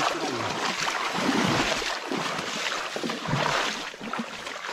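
Stream water sloshing and splashing in irregular surges.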